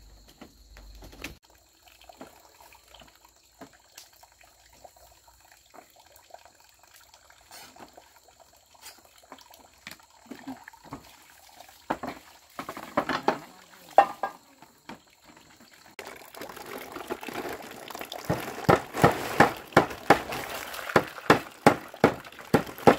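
Water splashing and sloshing, quiet and scattered at first, then louder about two-thirds of the way in with a steady run of quick strokes, about two a second.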